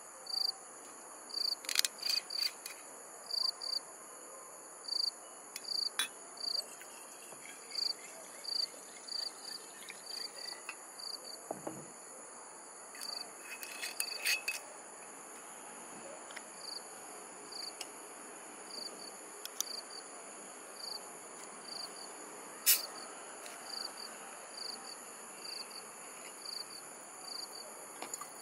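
Night insects, crickets, chirping in short regular pulses about twice a second over a steady high-pitched insect trill. A few sharp clicks come from handling the glass whisky bottle and its cap, the loudest about two-thirds of the way through.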